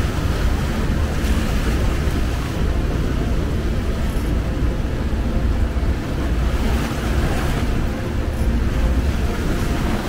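Steady roar of the Rhine Falls and churning whitewater close to the base of the falls, heard from a small open boat, with heavy wind buffeting the microphone.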